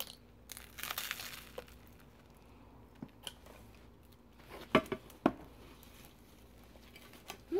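Handling noise from a plastic ketchup squeeze bottle being shaken, with two sharp knocks about half a second apart a little past halfway. Soft rustling comes before them.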